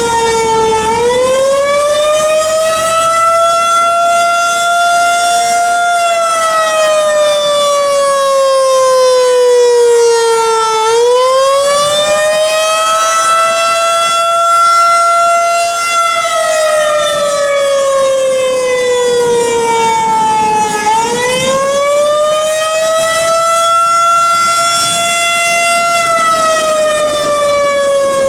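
Federal Signal 2001-130 rotating electromechanical warning siren sounding its attack signal. The pitch climbs over about two seconds, holds briefly, then slides slowly down, and the cycle repeats about every ten seconds, three rises in all.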